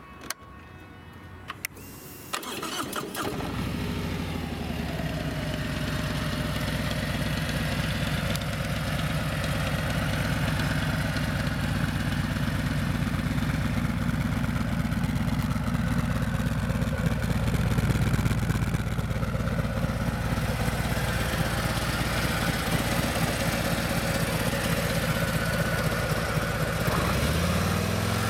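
A couple of switch clicks, then the 2017 Harley-Davidson Street Glide's stock Milwaukee-Eight 107 fuel-injected V-twin is started about two seconds in and settles into a steady idle.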